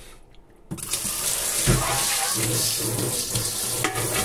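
Water running steadily into a kitchen sink, starting suddenly under a second in.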